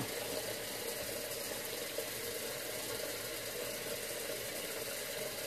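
Steady background hum with no distinct events.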